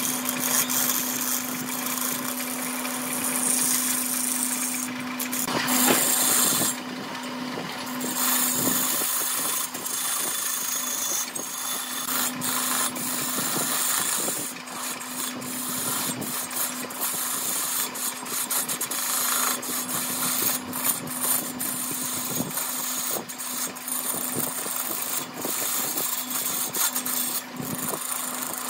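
Wood lathe running with a steady hum while a hand-held gouge cuts a spinning epoxy-resin and bamboo-root blank: a rough scraping hiss peppered with small ticks. The cutting stops briefly about seven seconds in, then resumes.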